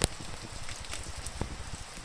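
Wood fire crackling, with a sharp pop right at the start and a few smaller snaps, over a steady hiss of rain.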